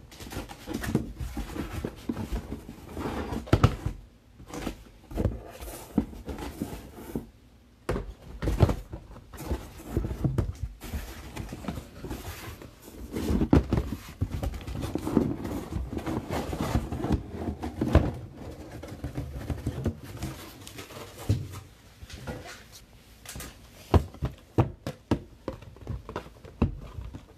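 Handling noise from cardboard card boxes being moved about on a table: irregular knocks, taps and rubbing, some knocks sharp and loud.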